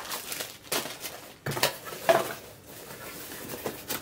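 Plastic packets of soft-plastic fishing lures rustling and clattering as they are tossed by hand into a cardboard box, with the loudest knock about two seconds in. Near the end the box's cardboard flaps are folded shut.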